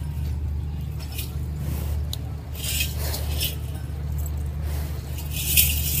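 A steady low hum with scattered rustling and scraping noises that come and go, the loudest about three seconds in and near the end.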